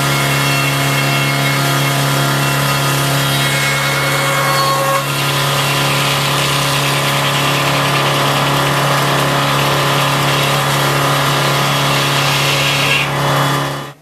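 A 1920 circular sawmill running, its big blade ripping through a white pine log on the carriage over the steady hum of the machinery that drives it. The sound is loud and continuous and shifts slightly about five seconds in.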